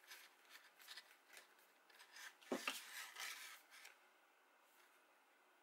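Faint rustling and scraping of cardstock as paper pieces are handled and pressed onto a glued card, with a louder sliding scrape about two and a half seconds in.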